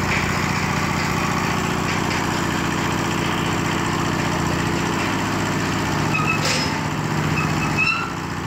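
Small engine of a concrete hoist (lif cor) winch machine running steadily. Its low tone shifts about six seconds in, and a few short high chirps come near the end.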